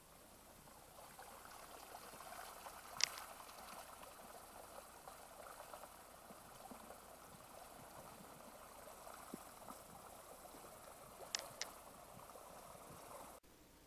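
Faint, steady trickle of muddy floodwater spreading over sand and driftwood at the leading edge of a small flash-flood surge, with a few sharp clicks, the loudest about three seconds in. The sound cuts off suddenly just before the end.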